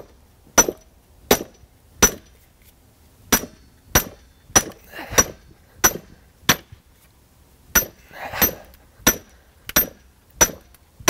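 Hard steel hammer striking the back (poll) of an axe head forged from old train rail, the head set in a log: about fifteen sharp metal-on-metal clanks, each with a short high ring, roughly one every two-thirds of a second with a brief pause partway. The blows test the hardened head, which takes them without chipping.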